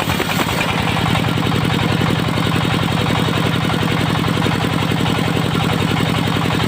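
Engine of a portable circular-saw sawmill running steadily, with a fast, even chugging pulse.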